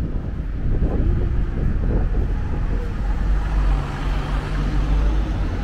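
Road traffic close by: a black cab drives past with a steady low engine hum and tyre noise over a constant low traffic rumble.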